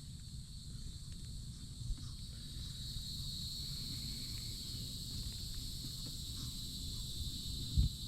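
Insects chirring steadily in a high, even drone over a low rumble, with a short thump near the end.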